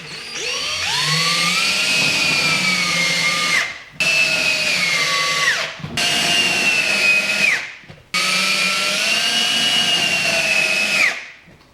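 Electric drill installing wall anchors, running in four bursts of about two to four seconds each. The motor whine rises as each burst starts and drops in pitch as it winds down.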